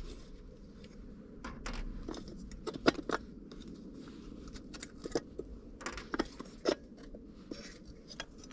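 Scattered light clicks, taps and scrapes of a Jeep headlight rim and its small metal parts being handled and turned round by hand, with a few sharper knocks along the way.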